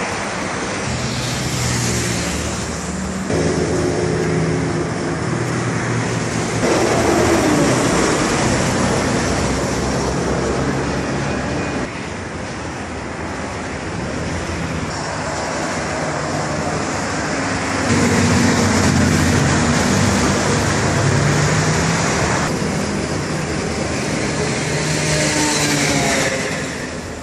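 Road traffic: motor vehicles running past with a steady engine hum and tyre noise. The sound changes abruptly several times.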